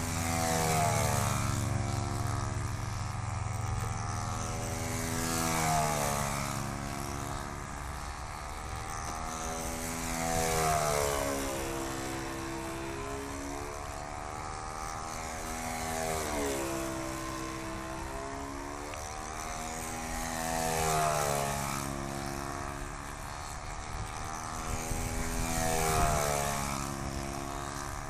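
Saito .56 four-stroke glow engine of a control-line stunt model airplane, swinging a three-blade propeller, running steadily as the plane flies laps. About every five seconds the sound swells and its pitch rises then falls as the plane passes by.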